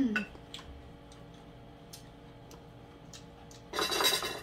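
Light scattered clicks of utensils against dishes, with a louder scraping clatter about four seconds in as a plastic rice paddle scoops rice from a pot onto a plate.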